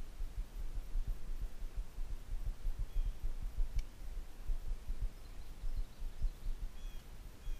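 Uneven low rumble of wind buffeting the camera microphone, with a few faint high bird chirps and one sharp click about halfway through.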